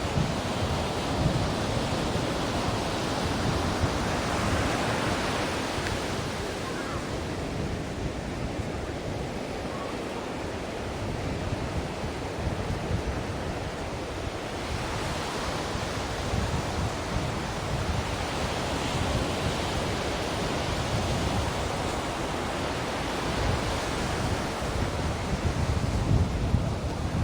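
Ocean surf: waves breaking and washing up the shore in a steady rush of noise that swells and eases every several seconds, strongest in the first few seconds and again near the end.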